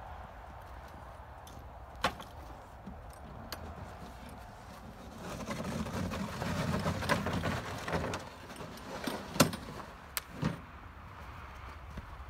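Handling noise from a plastic ice-fishing sled being unhitched from a SnowDog tracked power unit and its seat lifted off. There are sharp knocks and clanks, one about two seconds in and several more near the end, with a stretch of rough scraping in the middle.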